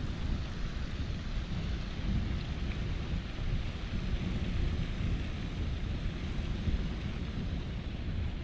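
Wind buffeting the microphone: an uneven low rumble with a faint hiss above it.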